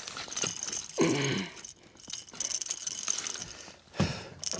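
Metal fishing tackle rattling and clicking in irregular bursts, with light jingling, as tangled lines and rigs are handled.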